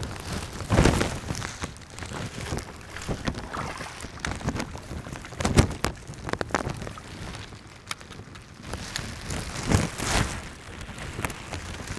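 Wind rumbling on the microphone of a waterproof camera and water sloshing around someone wading in a pond, with louder bursts about a second in, halfway through and near the end.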